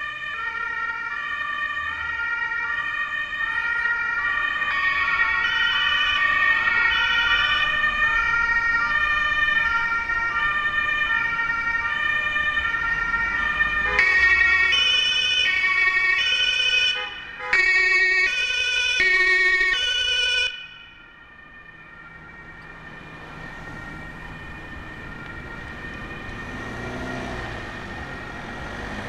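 German two-tone emergency vehicle sirens (Martinshorn) alternating between a high and a low note as the vehicles pass. About 14 s in a second, louder and closer two-tone siren takes over, then cuts off suddenly about 20 seconds in. After that only vehicle engines and street traffic remain.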